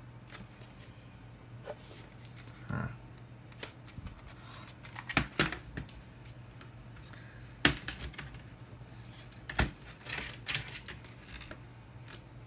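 A mechanical keyboard's case being handled and taken apart by hand: scattered plastic clicks and clacks, with a few sharper knocks, the loudest a little past halfway.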